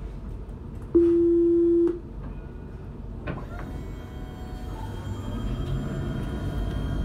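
Alstom Citadis tram at a stop: a loud, steady door-closing warning tone sounds for about a second, and a knock follows as the doors shut. From about five seconds in, the traction motors start to whine and the running rumble grows as the tram pulls away.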